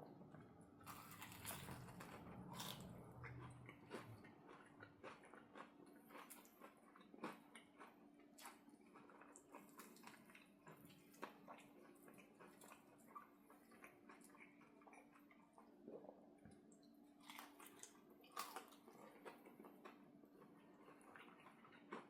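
A person eating close to the microphone: faint bites, chewing and crunchy clicks repeating irregularly, over a faint steady hum.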